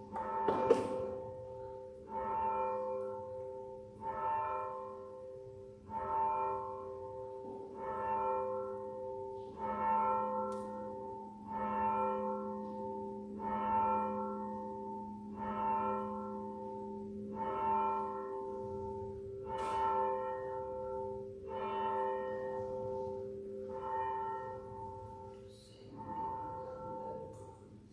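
A single church bell tolling before the service: one stroke about every two seconds, the same note each time, each stroke ringing on with a low hum under it. A sharp knock comes about a second in.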